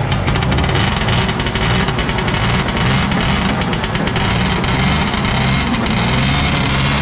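A vintage snowmobile's two-stroke engine running loudly and steadily, with a rapid pulse of firing strokes.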